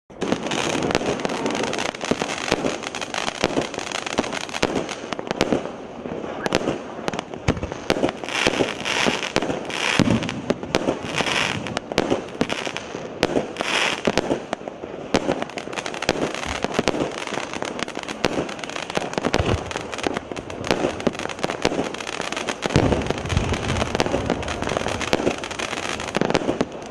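A 36-shot, 0.8-inch-calibre consumer firework cake firing in continuous sequence: sharp bangs of launches and aerial bursts follow one another several times a second, without a pause.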